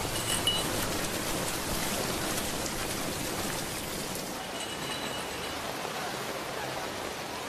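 Heavy rain falling steadily, an even hiss of rain. A brief faint high ring sounds twice, near the start and about five seconds in.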